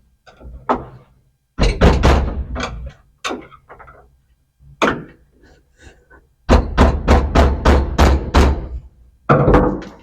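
Hard knocks and thumps from a part being banged and worked loose. A few scattered hits come first, then near the end a fast run of about eight strikes, roughly three a second.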